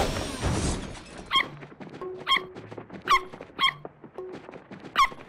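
A series of short, high cartoon squeaks, about five of them spaced unevenly, each a quick rise and fall. They follow vehicle noise that fades out in the first second.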